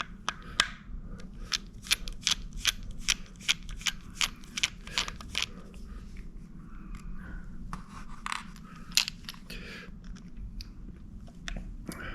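Small screws being unscrewed from a hard drive's metal casing with a screwdriver: a run of sharp clicks, about two or three a second, thinning out after about six seconds.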